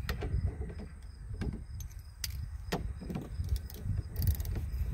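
Scattered light metal clicks and taps as a socket, the steering-wheel nut and its washer are worked off a steering-column shaft by hand, with a brief small metallic jingle a little after four seconds in.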